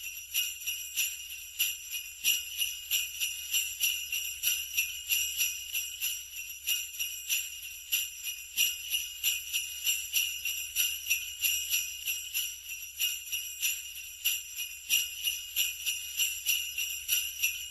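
Sleigh bells shaken in a steady rhythm, about two shakes a second, with a constant high jingling shimmer.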